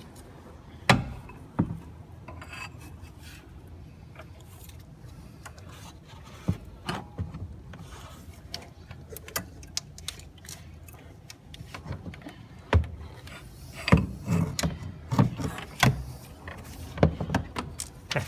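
A serpentine belt being worked off its pulleys by hand: rubbing and scraping with scattered sharp clicks and knocks, several of them close together near the end.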